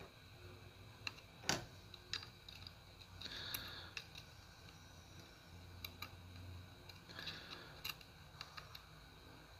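Scattered light clicks and taps of metal tweezers and a soldering-iron tip against a small surface-mount MOSFET on a circuit board as its pads are soldered down. The loudest tap comes about one and a half seconds in, with a couple of brief soft hisses later.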